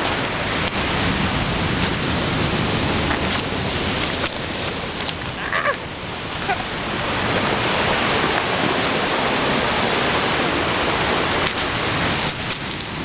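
Pacific surf breaking and washing up over a cobble beach: a steady, loud rush of water with a few faint clicks.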